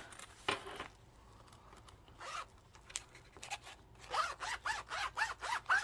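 A wallet's zipper being run back and forth. There are a few short strokes and ticks at first, then a quick run of short rasping zip strokes, about three or four a second, near the end.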